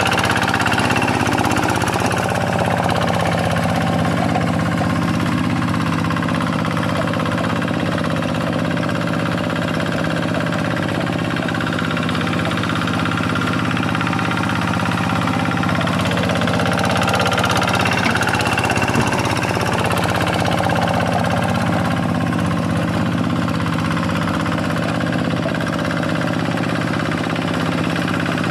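Quick G 1000 hand tractor's single-cylinder Kubota diesel engine running steadily while the tractor ploughs a rice paddy, with slight rises and falls in loudness.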